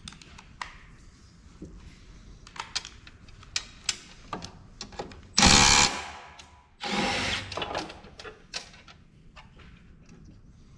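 Power drill running in two short bursts, the second a little longer, with scattered clicks and taps of parts being handled.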